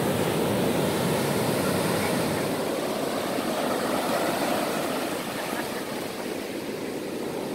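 Ocean surf washing in over the sand: a steady rushing noise that eases off a little over the last couple of seconds.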